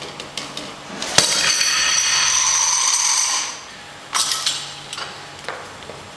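Weight plates loaded on a Rolling Thunder revolving grip handle set down with a sharp metal clank about a second in, followed by about two seconds of ringing, jangling metal. A few lighter metallic clicks follow as the handle is taken hold of again.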